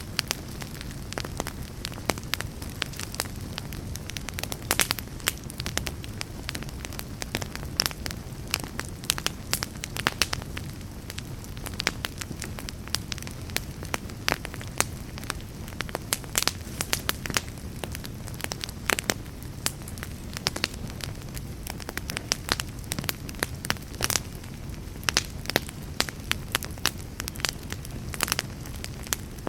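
Wood fire burning in a fireplace: a steady low rumble of flame with irregular sharp crackles and pops, several a second.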